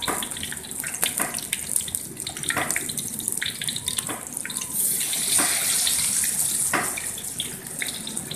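Flour-coated chicken pieces deep-frying in hot oil in a wok: a steady sizzle with fine crackling pops. It grows louder about five seconds in, as more pieces go into the oil.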